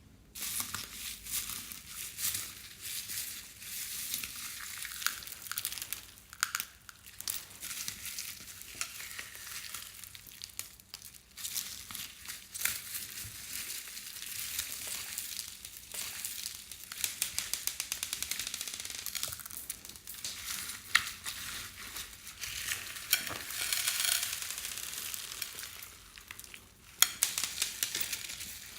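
Glitter slime with beads and floam mixed in, being squished and stirred: a steady crackle of many small clicks and pops, with brief lulls about eleven seconds in and near the end.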